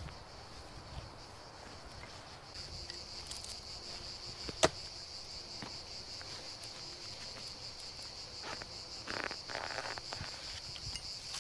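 Insects chirring steadily in a high, finely pulsing band that grows stronger a couple of seconds in. A single sharp click cuts through about four and a half seconds in, and there is brief rustling near the end.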